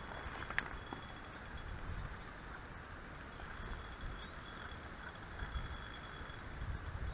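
Wind rumbling and buffeting on an action-camera microphone by a river, in uneven gusts, with a single sharp click about half a second in.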